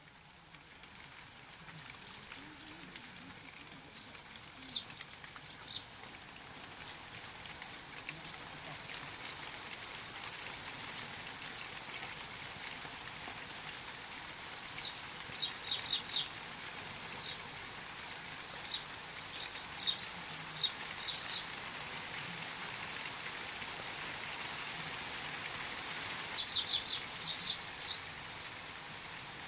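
Steady rain hiss, swelling over the first few seconds, with small birds giving short high chirps in scattered bursts, the densest cluster near the end.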